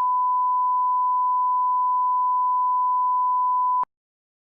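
Steady 1 kHz line-up (reference) tone, a single pure beep at one pitch, that cuts off suddenly with a click near the end, leaving dead silence.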